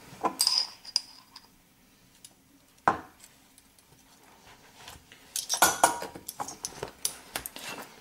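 Metal measuring spoons clinking and tapping while spice is spooned out: a few clinks at the start, a single sharp knock about three seconds in, then a busier run of clinks past the halfway mark.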